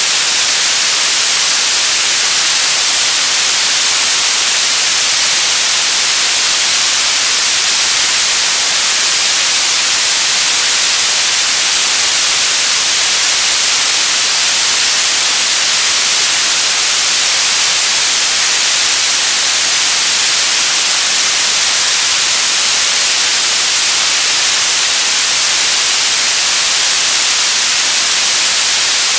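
Radio static: a steady, loud hiss of noise, brightest in the high end, with no tones, crackles or changes.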